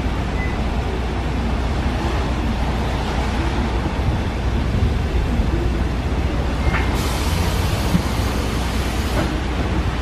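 Steady low rumble of a city bus's diesel engine running, mixed with wind noise on the microphone. A hiss of tyres on the wet road comes in about seven seconds in.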